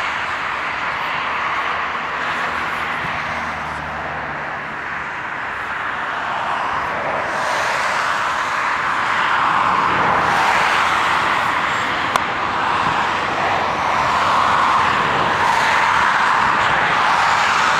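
Jet airliner engines heard across an airfield: a steady rushing hiss that swells and grows a little louder over the second half. One faint click about twelve seconds in.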